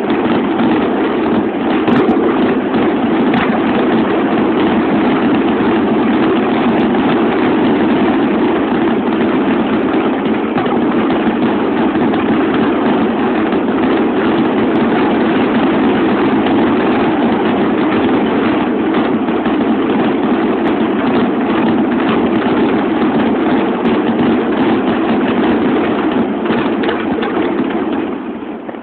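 Fireworks finale barrage: shells bursting in such rapid succession that the bangs and crackles merge into one dense, continuous rumble, easing off near the end.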